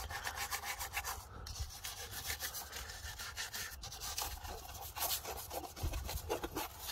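Bristle brush scrubbing engine degreaser over an engine's rocker cover in quick, repeated back-and-forth strokes.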